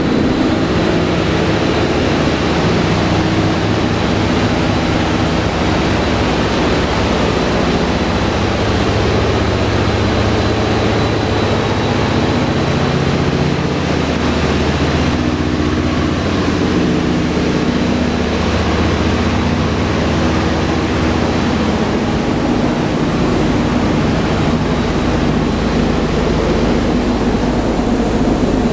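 Four Wright R-1820 Cyclone radial engines and propellers of a Boeing B-17 Flying Fortress in flight, a loud, steady drone heard inside the fuselage together with a heavy rush of airflow.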